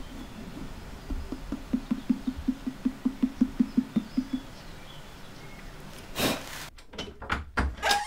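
Fingertips tapping the foot of an upturned unfired clay moon jar: a quick, even run of knocks, about six a second, each with a low ring from the pot's body. Near the end there is a brief rushing noise and a few sharp knocks.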